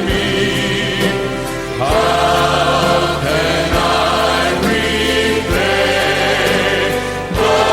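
Gospel-style praise song: a group of singers holding long notes over a band with bass and drums, with a soft low beat about every two seconds.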